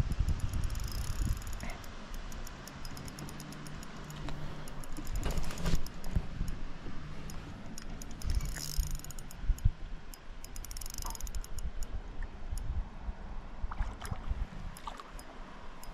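A Shimano Stella spinning reel ticking rapidly as it is cranked while a hooked trout is played, with a few short bursts of quicker clicking. A steady low hum runs under it for several seconds.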